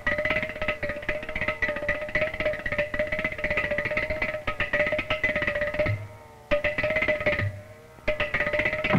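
Music: a held high note over a fast, clicking, plucked rhythm, breaking off briefly twice near the end.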